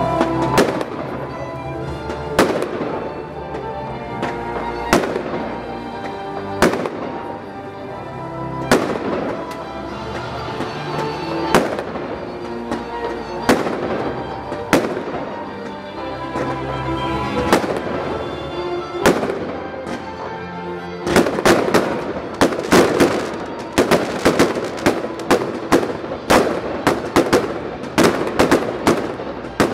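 Aerial fireworks going off with single sharp bangs every second or two over music, then about two-thirds of the way in a dense volley of rapid bangs and crackles.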